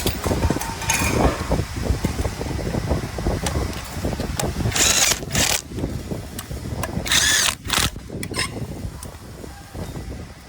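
Power drill driving in the screws that hold the granulator blades, run in a few short bursts, the longest about 7 seconds in, over a steady low rumble.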